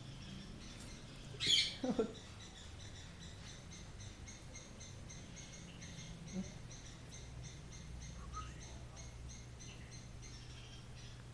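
A parrot gives one short, harsh squawk about one and a half seconds in, followed at once by a brief lower call. A steady, evenly pulsing high chirring of insects runs underneath.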